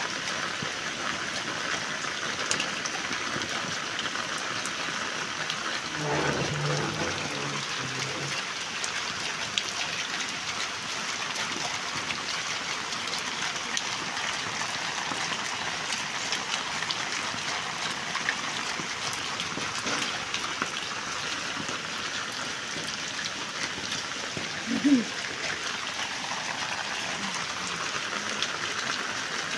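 Steady heavy rain falling onto floodwater, an even hiss of drops hitting the water's surface. Partway through there is a low rumble, and near the end a short, louder sound.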